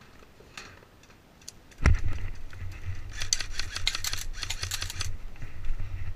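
A sudden thump about two seconds in, then a low rumble of movement on the helmet-mounted camera with dense crackling of dry twigs and leaves as the player pushes through scrub.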